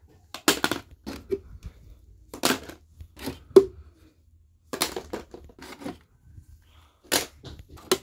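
Plastic puzzle cubes clacking and knocking against each other and the surfaces they sit on as they are grabbed and gathered up: a string of sharp knocks, irregular and sometimes in quick pairs.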